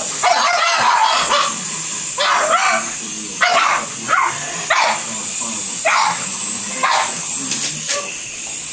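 Pugs barking and yipping in short bursts, about once a second, excited at a toy overhead.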